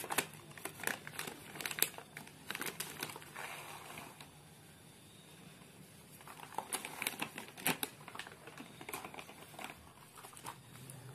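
Plastic fertilizer bag crinkling and rustling in the hands as it is opened, in short crackly bursts, with NPK granules shaken out of it into a palm. It goes quieter for a couple of seconds midway.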